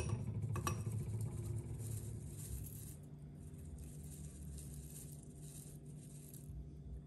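Dried herbs shaken from a spice jar into a glass of tomato sauce: a few sharp glass clinks in the first second, then an on-and-off rustling hiss of the dry leaves pouring out, which stops near the end.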